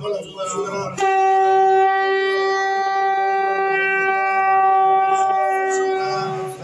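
A conch shell (shankha) blown in one long steady note of about five and a half seconds, starting sharply about a second in.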